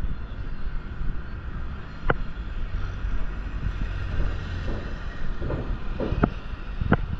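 Busy city street noise: a steady rumble of traffic, with a few sharp knocks or clicks, two of them close together near the end.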